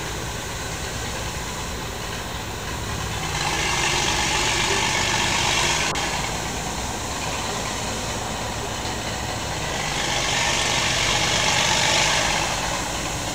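Engine of a restored 1922 Gotfredson truck idling steadily, swelling louder twice, about a third of the way in and again near the end.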